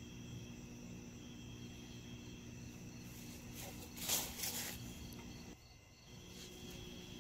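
Steady evening chorus of crickets and other insects chirring, over a low steady hum. About four seconds in, a brief loud rustling noise rises above it; shortly after, the sound dips for a moment.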